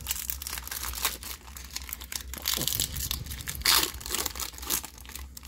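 Foil Pokémon booster-pack wrapper crinkling as it is torn open by hand, with a couple of louder rips midway.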